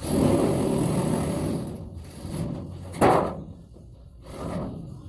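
Sheet-metal shop work: a scraping, sliding noise for about two seconds, then a single sharp knock about three seconds in.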